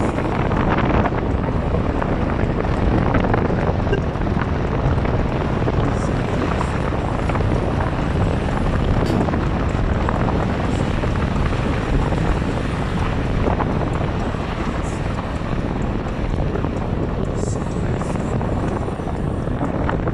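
Steady rushing noise of a vehicle driving over desert sand, with wind buffeting the microphone.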